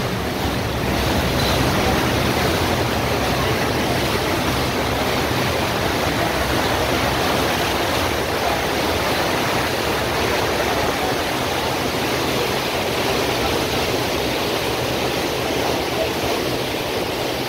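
Steady rush of churned water in a boat's propeller wake, heard from the stern, with a faint low drone underneath.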